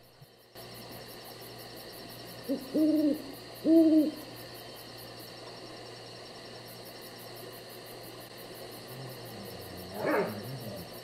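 An owl hooting three low notes, a short one followed by two longer ones, over a steady faint background of night ambience. Near the end comes another short, louder call.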